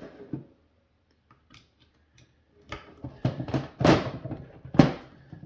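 Handwork on a car's plastic mirror housing while stiff Torx screws are being worked loose: after a short quiet spell, a run of short, sharp knocks and scrapes of hand tools against the plastic and metal parts, with one sharp click near the end.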